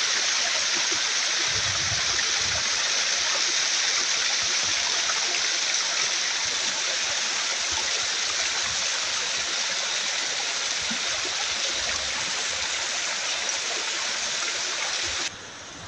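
Steady rushing water, like a jungle stream or waterfall, as an even hiss. About fifteen seconds in it cuts off suddenly to a much quieter background.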